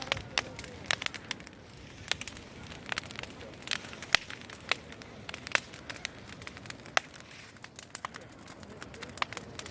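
Bonfire crackling, with frequent sharp pops at irregular intervals over a low steady hiss of burning.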